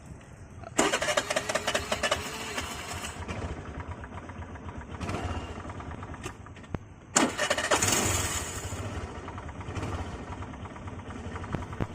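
Suzuki Access 125 scooter engine started twice, about a second in and again about seven seconds in. Each start comes with a harsh rattling noise, and the engine keeps running between and after. The owner takes the noise for a failing starter adapter.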